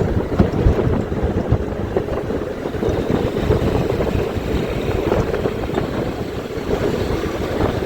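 Wind buffeting the microphone over the steady rumble of a vehicle on the move in traffic.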